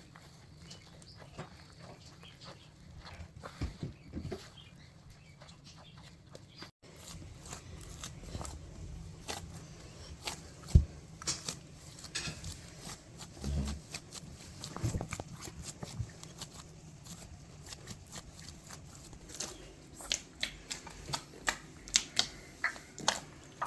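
Flour-and-water dough being kneaded by hand: quiet, irregular soft slaps, pats and taps.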